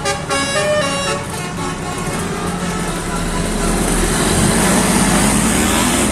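A bus's 'telolet' musical horn (basuri) plays its last short notes of a tune, then gives way to the bus's engine and road noise, which grow louder.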